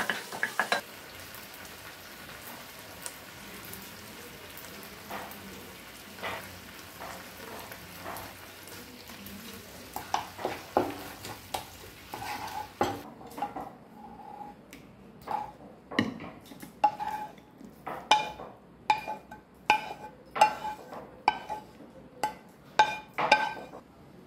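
Tomatoes, garlic and dried red chillies frying in oil in a non-stick pan, with a spatula stirring and scraping through them over a steady sizzle. About halfway through, the sizzle dies down and the spatula knocks against the pan about twice a second, each knock ringing briefly.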